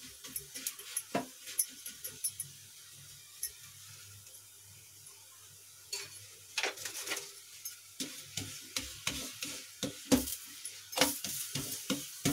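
Thepla cooking on a flat tawa with light sizzling: a silicone brush dabs oil onto it with soft taps, then after a quieter moment a wooden spatula presses and scrapes it on the griddle with more frequent taps.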